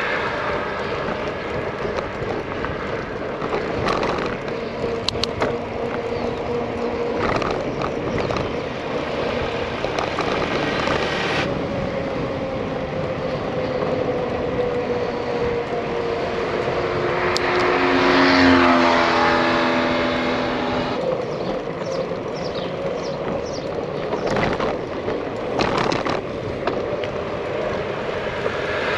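Steady rushing wind and road noise from riding a bicycle on an asphalt road, with a few short knocks. About eighteen seconds in, a car passes, swelling and then falling in pitch as it goes by.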